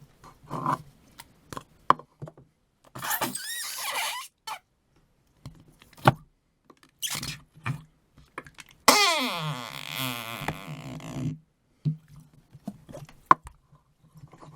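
Noise putty squelched in its pot, giving off a string of wet, fart-like sounds with small squishes and clicks between them. The longest, about nine seconds in, lasts around two seconds and falls in pitch.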